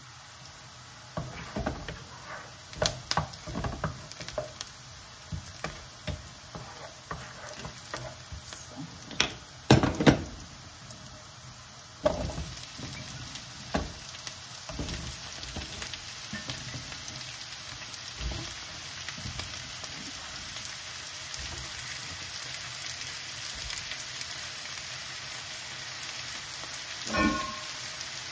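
Onions sizzling in a frying pan, with a run of knocks and clatters as raw potato slices are dropped in and stirred with a wooden spoon, loudest about ten seconds in. From about twelve seconds on the sizzling is steadier, and a short ringing sound comes near the end.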